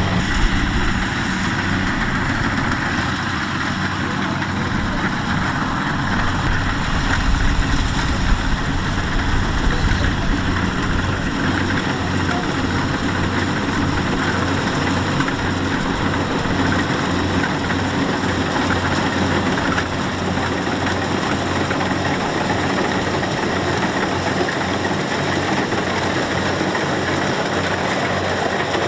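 Kubota DC-70 rice combine harvester's diesel engine and machinery running steadily, with a low even throb underneath.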